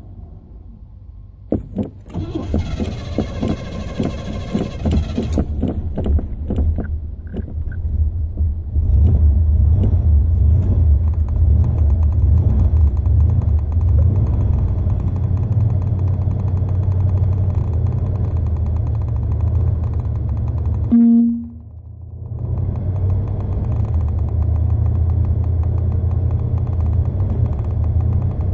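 Car engine being hard-started: the starter cranks for about three seconds with an even repeating beat, the engine catches and settles into a steady low idle. About 21 seconds in there is a short steady tone and the engine sound dips briefly before it picks up again.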